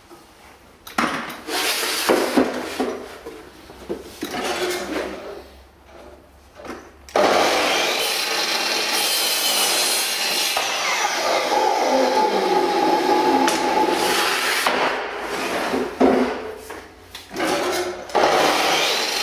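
Drop saw (sliding mitre saw) cutting a kiln-dried hardwood door jamb. First come knocks of the timber being set on the saw table. About 7 s in the motor starts suddenly and the blade runs through the wood, its pitch falling as it bites. It runs down around 15 s and starts again near the end.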